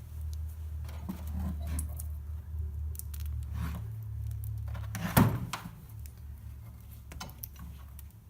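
Light metallic clinks and handling noises of small brake parts, the caliper slide pins being worked with, and one sharp knock about five seconds in, over a steady low hum.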